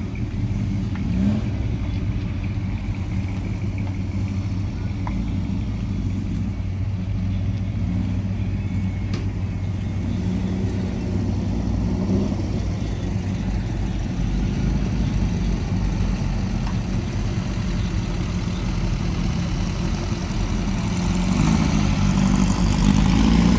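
Several cars driving slowly past one after another, their engines running low with a few short revs. The loudest pass comes near the end, as a tube-frame dune buggy goes by.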